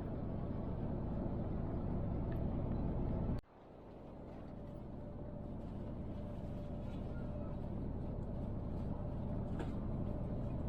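Steady engine and road rumble inside a moving coach bus. The rumble cuts out abruptly a little over three seconds in, then swells back.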